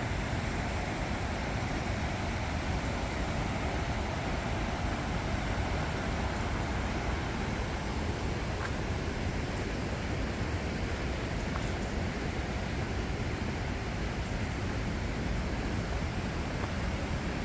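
Steady rushing of a swollen river in flood, an even noise that holds without a break or change.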